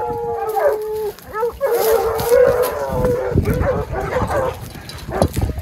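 A pack of running hounds baying in full cry on the chase after wild boar: several dogs giving long, drawn-out howling notes that overlap, then shorter barks and yelps in the second half.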